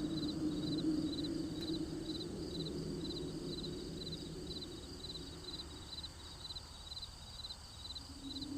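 Crickets chirping steadily at high pitch, about two to three chirps a second, over a low hum that fades away in the second half.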